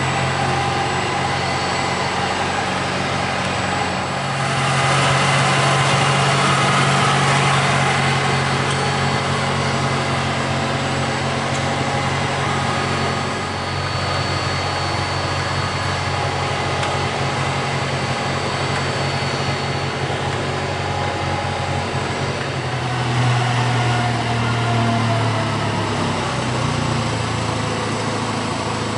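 Caterpillar forklift's engine idling steadily. A louder hiss comes in for a few seconds about four seconds in, and near the end the engine note rises and shifts for a few seconds.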